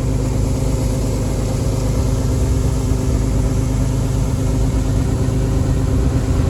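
Engine of rice-harvesting machinery running steadily at an even speed.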